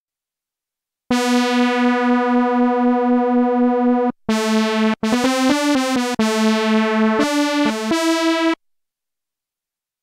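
Behringer Vintage software synthesizer playing a preset one note at a time: a long held note with a slight pulsing wobble for about three seconds, then a quick run of short notes at changing pitches. It starts about a second in and stops well before the end.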